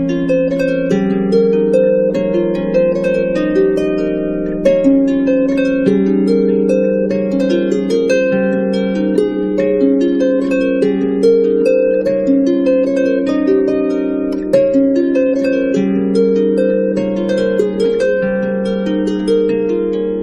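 Background instrumental music of plucked strings, harp-like, playing a continuous flowing run of notes.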